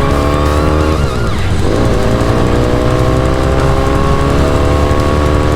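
1970 Royal Enfield Interceptor MKII's 736 cc parallel-twin engine running under way. About a second in the revs drop and then pick up again, as at a gear change, and then hold steady.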